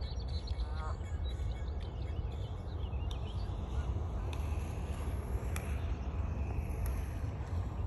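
Canada geese by the water: one short rising honk about a second in, over a steady low rumble, with faint high chirps from small birds and a few light clicks.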